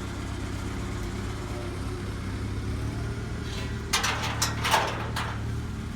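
Tractor engine idling steadily, with a short run of sharp clatters from about four to five seconds in.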